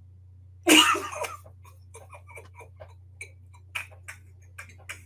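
A burst of laughter about a second in, then short stifled giggles and mouth clicks at uneven intervals, over a steady low electrical hum.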